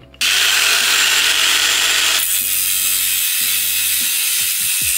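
Angle grinder cutting through a metal seat rail: a loud, steady grinding hiss that starts a fraction of a second in.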